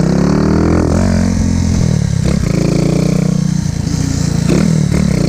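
Small motorcycle engine revving under hard throttle in first gear during a wheelie attempt. Its pitch climbs in the first second, drops about two seconds in, and falls and rises again near the end.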